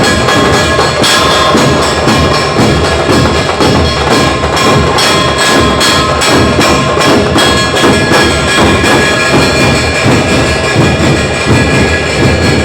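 A village band (tafa) playing loud live music: rapid, dense drum strikes with bright cymbal clashes over a few steady held notes.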